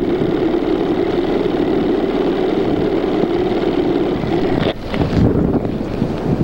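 Strong blizzard wind buffeting the microphone as a loud, steady rush. It drops off for a moment about five seconds in, then gusts back unevenly.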